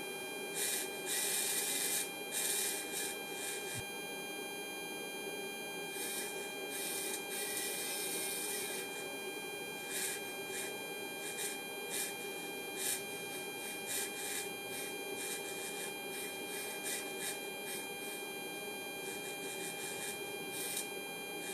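Kollsman servo altimeter under test: a steady electrical hum with a couple of short spells of whirring from its AC servo motor and gear train as it drives the pointer and counter drums, with light clicks scattered through.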